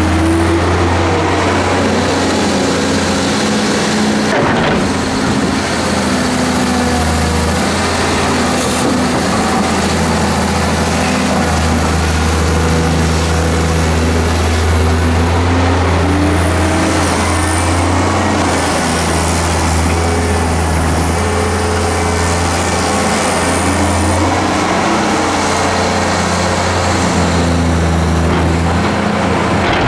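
Hyundai R290LC-3 hydraulic excavator's diesel engine running under load, its pitch rising and falling as the boom and bucket work.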